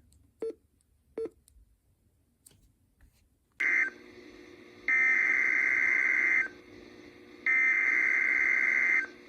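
Emergency Alert System SAME digital header: a short burst of two-tone data about three and a half seconds in, then two longer data bursts of about a second and a half each, a second apart, marking the start of a new alert. Two faint clicks come just before.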